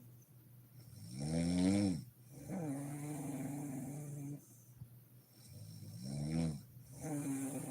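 Woman snoring in her sleep: two breath cycles, each a short loud snore that rises and falls in pitch, followed by a longer, steadier and quieter droning tone. The loud snores come about one and a half seconds in and again about six seconds in.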